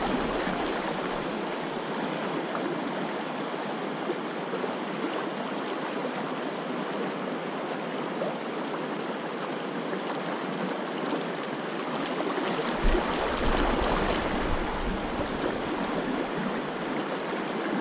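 Fast river current running over riffles, a steady wash of water noise, briefly louder with a low rumble about two-thirds of the way through.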